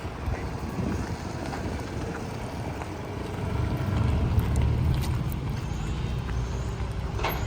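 A motor vehicle going by on the street, its low rumble swelling about halfway through and then easing, with wind noise on the microphone.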